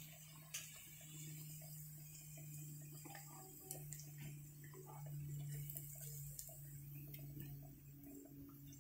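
Marinated pork deep-frying in oil in a wok: a faint, steady sizzle with scattered small pops and crackles, over a steady low hum.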